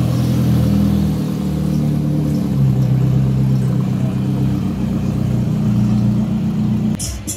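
McLaren supercar engine running with a steady low drone, its pitch stepping down about two and a half seconds in.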